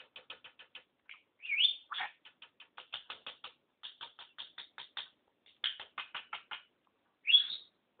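Budgerigar chattering: quick runs of short clicks, about five or six a second, broken by a few louder rising chirps, the loudest near the end.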